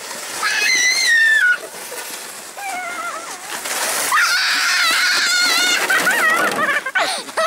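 Children shrieking and squealing while sliding down snow on a plastic saucer sled: a high shriek about half a second in, then from about four seconds in a longer squeal with a fast, wobbling pitch.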